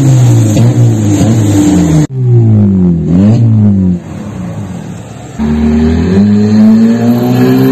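Honda Civic engine revved hard through an aftermarket exhaust diffuser, giving a strong, loud rumble. It is a series of quick rev blips, broken off abruptly about two seconds in, then a quieter idle, then revs held up steadily from about two-thirds of the way through.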